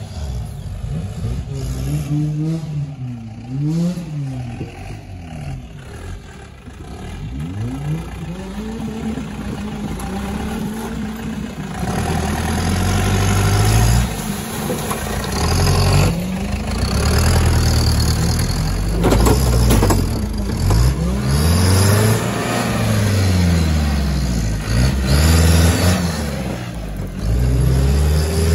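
Off-road 4x4 jeep engine revving up and down again and again as the jeep claws through deep dirt ruts under load, each rev rising and falling in pitch. It gets louder about halfway through.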